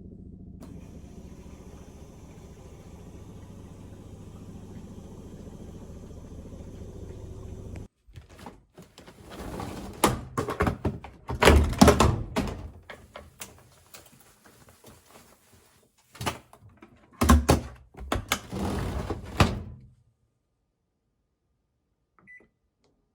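Washing machine running with a steady hum that cuts off suddenly about eight seconds in. It is followed by a run of irregular knocks and thuds from the machine being handled, then near silence.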